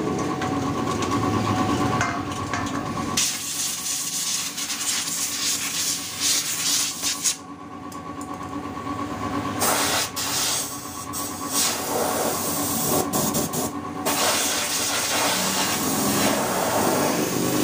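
Loud, even hissing in long stretches, starting about three seconds in and broken twice by short pauses, over a steady high-pitched hum.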